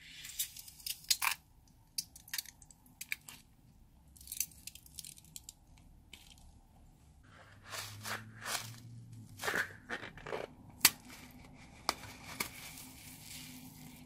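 Small foam beads crunching and crackling as a bead-filled rubber balloon is squeezed and emptied onto a tray of white foam, in irregular sharp crackles.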